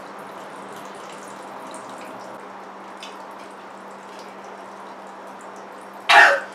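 Soy sauce pouring from a bottle into a plastic marinade container in a long steady trickle, with faint drips. A short, loud cough-like burst comes near the end.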